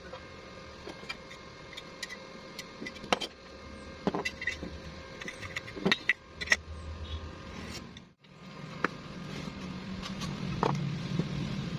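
Scattered sharp metal clinks and knocks from steel parts being handled, over a low steady hum. About eight seconds in, the sound cuts out briefly, and afterwards the hum is stronger.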